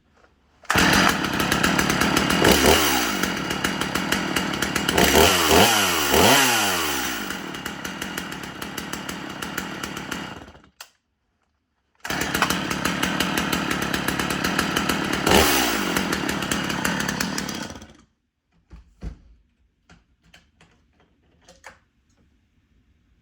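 Stihl MS250 two-stroke chainsaw running and being revved up and down several times. The sound breaks off suddenly after about ten seconds, runs again for about six seconds, then stops, leaving a few faint clicks.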